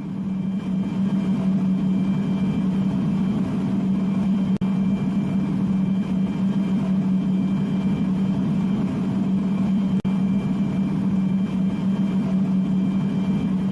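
A machine running steadily with a strong low hum, briefly cutting out twice.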